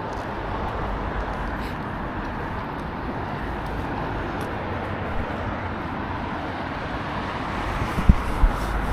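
Steady outdoor road traffic noise, a continuous rumble and hiss of passing cars. Two short low thumps near the end.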